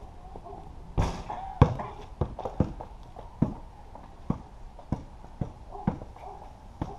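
Footsteps and knocks on a concrete patio: a sharp thump about a second in, then lighter knocks at an uneven pace of about one or two a second.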